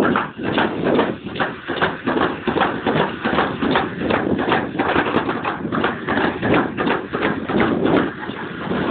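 Summer luge sled running fast down its trough track, its wheels clacking over the joints between track sections about three to four times a second over a steady rolling rumble.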